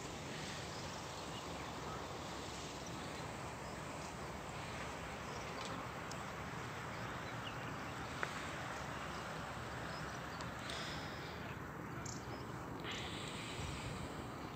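Steady outdoor background noise with a few faint, short high chirps and a single sharp click about eight seconds in.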